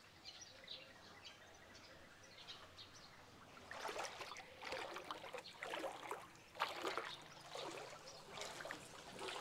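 Floodwater splashing and sloshing in irregular strokes, starting about four seconds in after a faint stretch.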